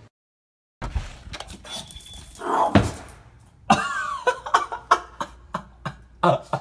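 Pug whining, with a quick run of sharp knocks, about three or four a second, in the second half.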